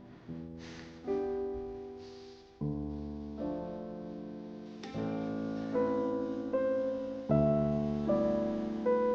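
Piano music: slow single notes and chords, each struck and fading before the next.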